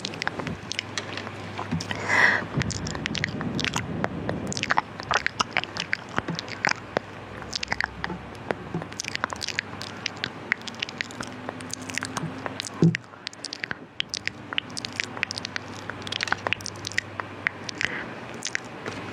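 ASMR mouth sounds: quick wet clicks and smacks of the lips and tongue, several a second and irregular, with a sharper, louder click about two-thirds of the way through.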